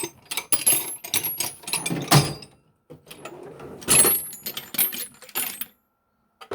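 Metal sockets and tools clinking and rattling as they are rummaged through, in bursts with brief pauses and some ringing metallic tings.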